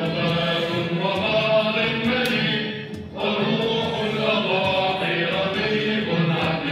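A choir singing with music, in long held notes, with a brief break about three seconds in.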